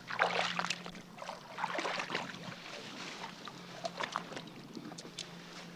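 Shallow water splashing in a few short bursts as a hand works in it, with a low steady hum underneath.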